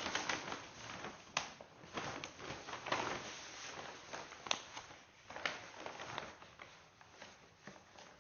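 Construction and handling noises in a small room: irregular knocks and clatters over scraping and rustling, with the sharpest knocks about a second and a half in and again around four and a half seconds in.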